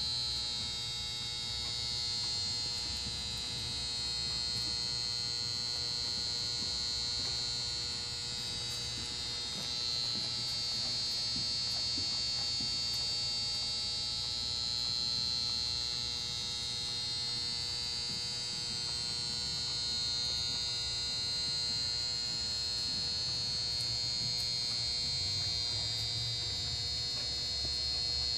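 Steady electrical hum and high buzz that does not change throughout, with no distinct hoofbeats standing out.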